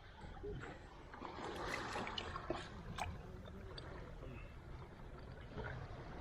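Faint water sloshing and trickling with a few small clicks and knocks, as a sea snail shell with an octopus stuck inside is turned over in the hands.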